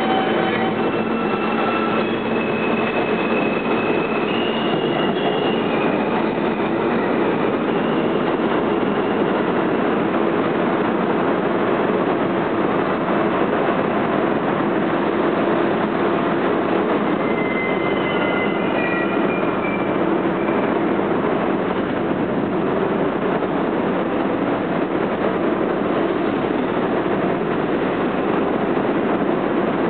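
New York City subway trains pulling out of an underground station: a steady rumble of wheels on rails, echoing in the station. Thin wheel squeals ring out during the first several seconds and again for a few seconds past the middle.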